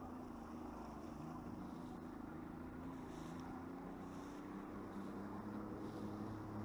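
Bass boat's outboard motor running steadily, an even hum with a slight drift in pitch.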